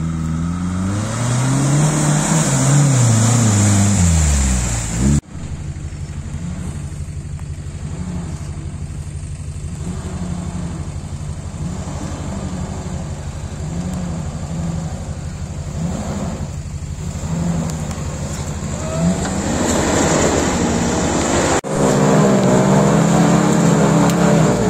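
Off-road 4x4 engines working through mud, in three cut clips. First an engine revs up and down several times; after a cut about five seconds in, a steadier, quieter engine drone as a vehicle crawls along a rutted track; after another cut near the end, an engine runs louder again.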